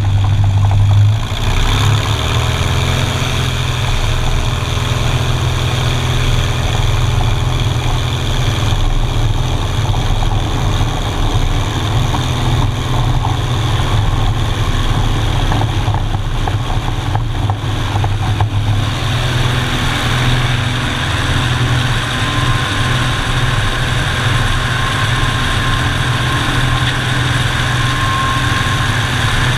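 Single-engine piston airplane's engine and propeller running at takeoff power through the takeoff roll and climb-out. The engine note climbs in the first couple of seconds, and a rushing-air hiss thickens about two-thirds of the way in.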